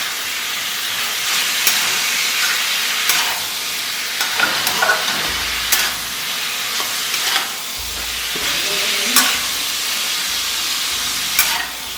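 Chicken sizzling in hot oil in a kadhai over a high flame while a spatula stirs it, with a steady sizzle and a sharp clack of the spatula against the pan every second or two.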